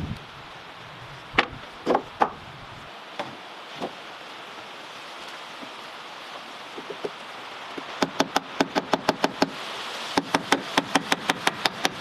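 Hammer knocking on wood: a few separate knocks, then two quick runs of about a dozen sharp taps each, roughly seven a second, over a steady hiss.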